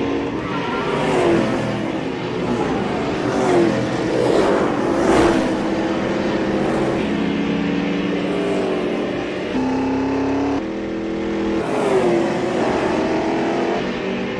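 Stock car engines racing on an oval track, heard from in the car: a steady engine note that jumps in pitch a few times as it revs, with the falling sweep of other cars passing several times.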